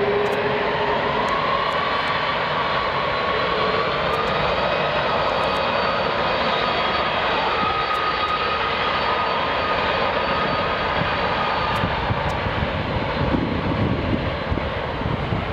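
Boeing 747 four-engine jet airliner at takeoff power, a loud steady jet roar with several whining tones that drift slightly in pitch. A deeper crackling rumble builds near the end.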